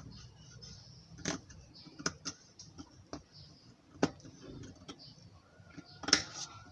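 Tailor's shears and hands working coat fabric and haircloth for trimming: faint rustling with a few scattered light clicks, the sharpest about six seconds in.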